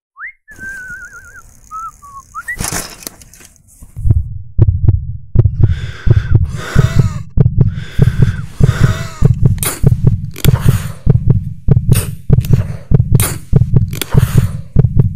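Sound-design heartbeat, deep regular thumps about twice a second, set against rasping, gasping breaths, as in an asthma attack. It opens with a short warbling whistle-like tone before the heartbeat starts about four seconds in.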